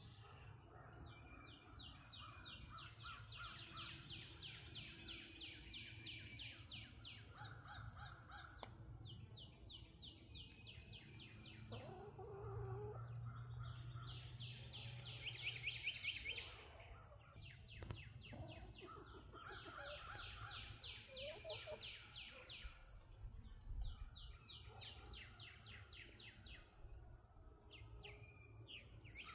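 Faint birdsong: one song of fast high trills, each lasting two or three seconds, repeats every few seconds. Lower calls come in about twelve and twenty-one seconds in, over a steady low hum.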